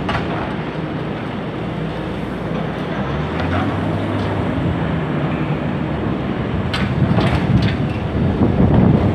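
Diesel engines of demolition excavators running steadily as a high-reach machine crushes the upper floors of a concrete building, with a few sharp knocks of breaking concrete about seven seconds in. Wind rumbles on the microphone.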